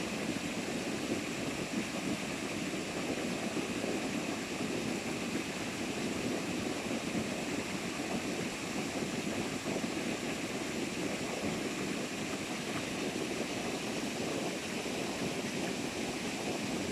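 Steady rush of water pouring over a mountain-stream waterfall.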